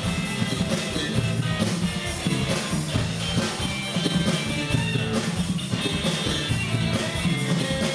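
Live rock band playing: electric guitar over a drum kit, steady and continuous.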